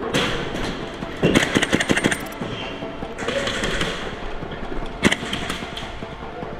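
Airsoft rifle firing: a quick burst of shots about a second in, then a single shot about five seconds in.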